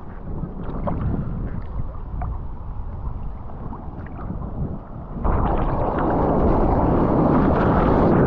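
Sea water sloshing and splashing around a surfboard, with a low rumble. About five seconds in, a much louder rush of white water suddenly takes over.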